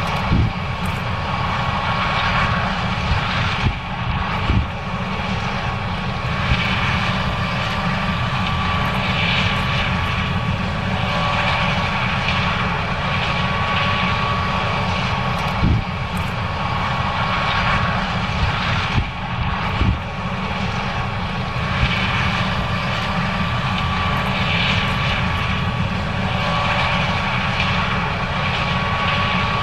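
John Deere S790 combine harvester running steadily while harvesting corn: a constant machine drone with a low rumble and a steady whine. A few short knocks stand out above the drone.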